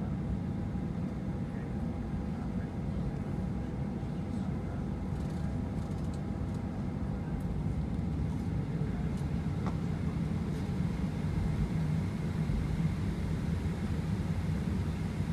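Boeing 737-900ER's CFM56-7B jet engines and airflow heard inside the cabin from a window seat: a steady low rumble with faint constant engine tones.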